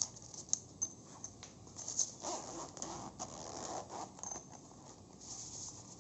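Faint zipper of a soft lens pouch being pulled open, with small clicks and fabric rustling as the pouch is handled.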